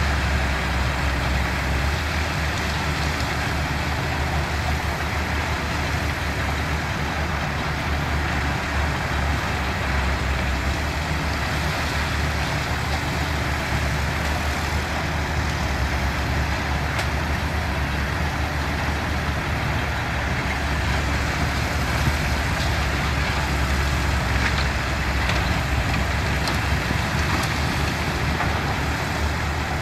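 Heavy diesel construction machinery running steadily, a deep unbroken engine drone with a few faint ticks over it.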